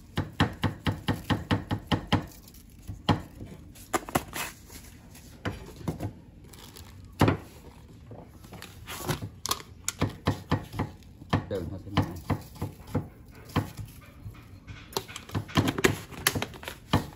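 A run of quick knocks and clatters, rapid in the first couple of seconds and scattered after that, with voices in the background.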